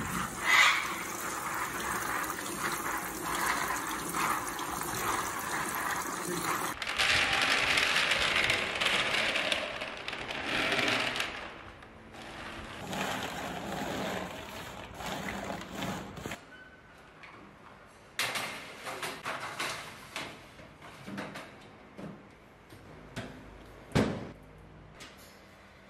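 Tap water running onto raw peanuts in a plastic colander while hands rub them clean. This is followed by quieter rattling and scattered clicks as the peanuts are spread on a metal tray, and a sharp knock near the end.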